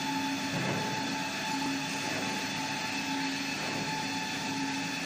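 Toilet-roll paper log saw machine running: a steady machine hum with a high whine over it and a lower tone that cuts in and out in a regular cycle. A brief low knock comes just over half a second in.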